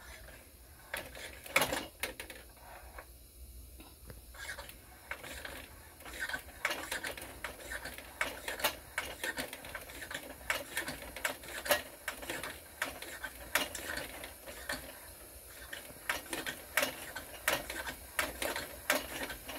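Hand pump on a Vapalux M320 kerosene pressure lantern's fount being worked in quick strokes, each stroke clicking, to build pressure in the lit lantern. A few scattered strokes at first, then a steady run of about two a second from about six seconds in.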